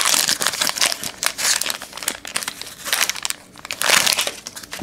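A trading-card pack's foil wrapper being torn open and crinkled in the hands: irregular crackling rustles, loudest at the start and again about four seconds in.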